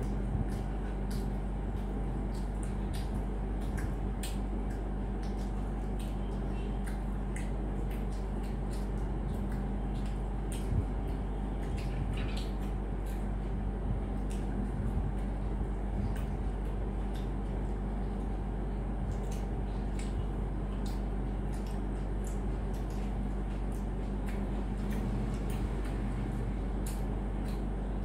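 Two people eating pani puri and egg rolls: faint scattered crunches, clicks and chewing as puri shells are cracked and bitten and rolls are bitten, over a steady low electrical hum.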